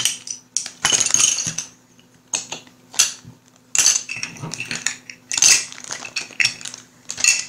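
Small hard board-game door pieces clinking and clattering against each other as they are handled and put back into a bag, in several short bursts of clicks and rustling with brief pauses between.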